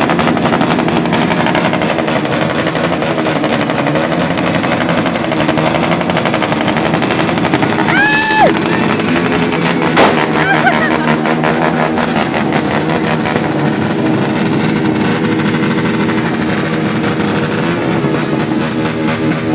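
Motorcycle exhausts revved hard and held loud, with a rapid, machine-gun-like crackle of pops. A single sharp bang comes about ten seconds in.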